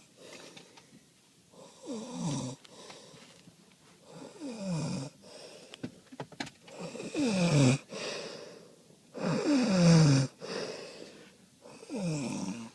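A man snoring in his sleep: five snores about every two and a half seconds, each a rattling breath that slides down in pitch, the middle ones the loudest.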